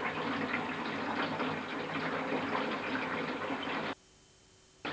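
Water running steadily from a tap into a bathtub, cutting off suddenly about four seconds in.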